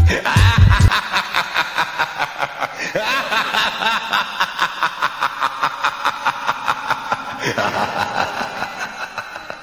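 A heavy music beat stops about a second in. It gives way to a long run of rapid laughter, about five pulses a second, fading toward the end.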